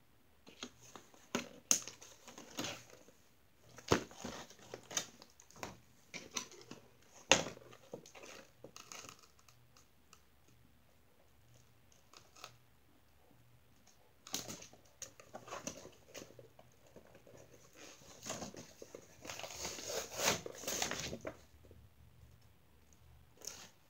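Clear plastic doll packaging and tissue paper being handled and pulled open: crinkling and rustling with scattered sharp clicks and snaps, and a denser, louder stretch of crinkling toward the end.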